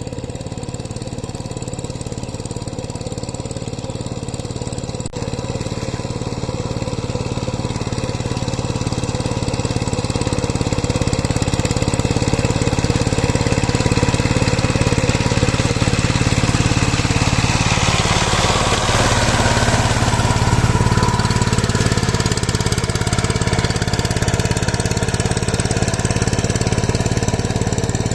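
Power tiller engine running steadily, growing louder over several seconds about ten seconds in and then holding at the higher level.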